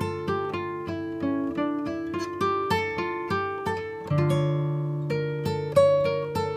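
Background music: a plucked acoustic guitar playing a melody of single notes over held bass notes.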